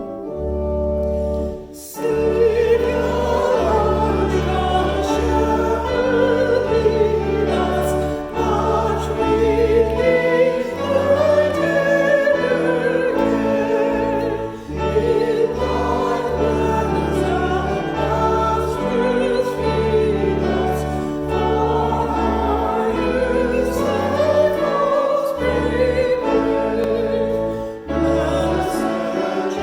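A hymn sung to pipe-organ-style accompaniment: held organ chords over a steady bass line, with singing above them. The full music comes in about two seconds in after a short pause, with brief breaks between phrases.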